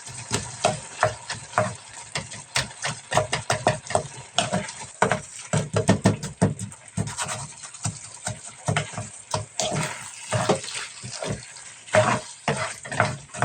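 Food being washed by hand in a bowl of water at a kitchen sink: irregular rubbing, swishing and clattering strokes throughout.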